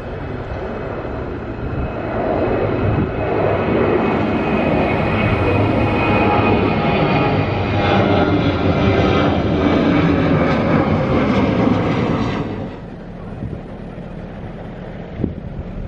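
Jet engines of a JAL Boeing 737 climbing out after takeoff and passing overhead: a loud rumble with a whining edge that swells over the first couple of seconds. About three-quarters of the way through it drops sharply to a lower, steadier background rumble.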